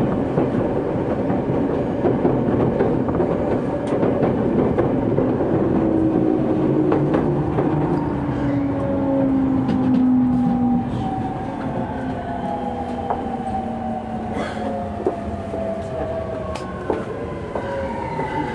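JR East 209 series electric train's MT68 traction motors whining under braking, the whine falling slowly in pitch as the train slows into the station, over a steady running rumble with occasional sharp clicks from the wheels on the rails.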